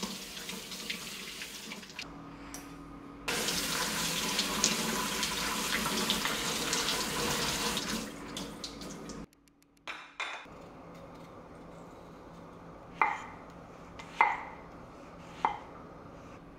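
Kitchen faucet running over hands and then over fruit in a colander at the sink, the stream louder for several seconds in the middle before it cuts off. Later a kitchen knife slicing figs knocks three times on a wooden cutting board, each knock sharp and short.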